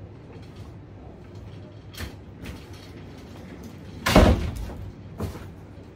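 A few knocks and one loud thump about four seconds in as packed cardboard boxes are set down and an office chair is moved.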